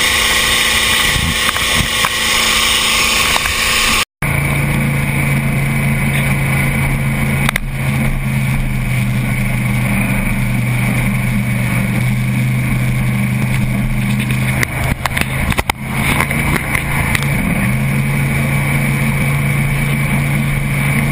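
Supercharged V8 inboard of an Eliminator Daytona speedboat running at speed, a high whine over rushing wind and water. After a cut about four seconds in, the engine runs slowly with a low steady exhaust note and water hissing along the hull.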